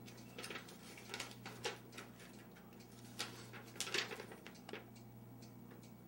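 A sheet of paper rustling and crinkling in someone's hands as it is unfolded and handled: a scattered run of short, crisp crackles.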